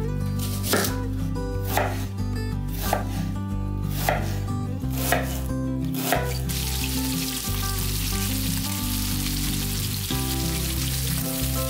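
Chef's knife chopping an onion on a wooden cutting board, a sharp cut about every half second; after about six seconds this gives way to diced onion and pork sizzling steadily in hot oil in a frying pan.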